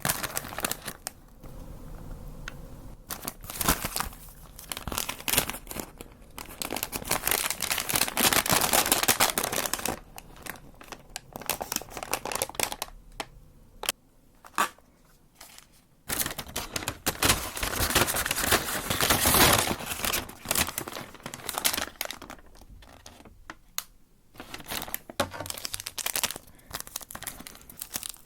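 Paper fast-food packaging being handled: crinkling, rustling and tearing, with two longer loud stretches of dense rustling and scattered sharp crackles between quieter moments.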